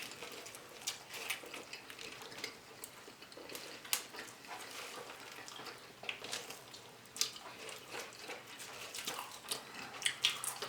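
Close-miked chewing and wet mouth sounds of someone eating a large roast beef sandwich: irregular faint smacks and clicks.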